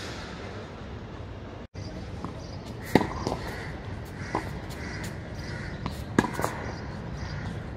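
Tennis rally on a hard court: sharp pops of racket strikes and ball bounces, the loudest about three seconds in and just after six seconds. A bird calls over and over in the background, about twice a second.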